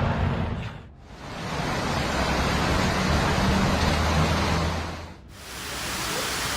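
Steady rushing storm noise, broken by two short fades about a second in and about five seconds in, with a low engine hum under the middle stretch.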